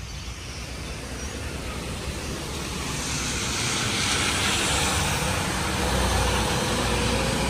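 Road traffic: a vehicle passing on the street, its engine rumble and tyre hiss growing steadily louder over the first few seconds, then staying loud.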